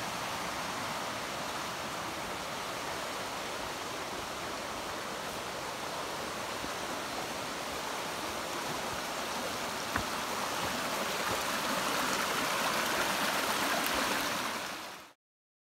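Mountain creek rushing over rocks and small cascades, a steady wash of water that grows a little louder near the end, then cuts off suddenly.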